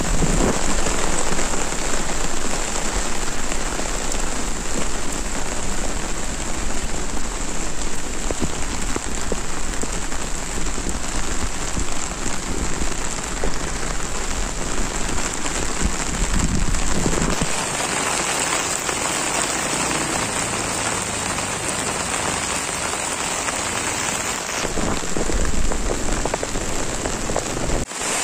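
Heavy tropical rain pouring steadily onto a street covered in standing floodwater. The sound shifts in character about two-thirds of the way through, losing some of its low rumble.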